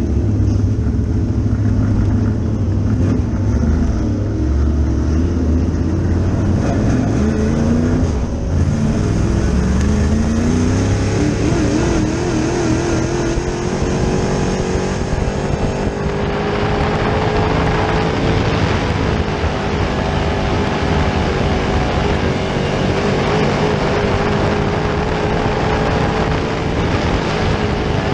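Dirt late model's GM 604 crate small-block V8, heard from inside the cockpit: a low, uneven idle at first, then the engine note climbs as the car pulls away about eight to twelve seconds in. From about sixteen seconds it runs at a steady higher pitch under more rushing noise.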